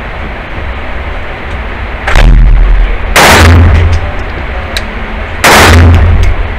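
Three shots from a 9mm pistol in an indoor shooting range, each with a long reverberating tail: the first about two seconds in, the second a second later, the third about two and a half seconds after that.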